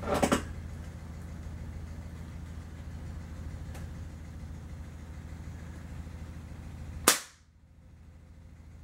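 A Crosman Model 70 CO2 air rifle fires a single shot, a sharp crack about seven seconds in. Before it there is a brief clatter of handling at the start and a steady low hum.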